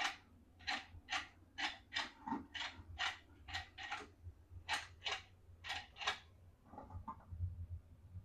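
Short, scratchy rustling strokes, about two a second, from a toy kitchen set and its packaging being handled during an unboxing. About seven seconds in the strokes stop, leaving a few soft low bumps.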